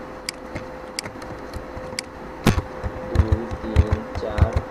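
Computer mouse clicks and keyboard key presses during copy-and-paste editing: a few sharp separate clicks, a louder click about halfway through, then duller key taps. A steady faint electrical hum runs underneath.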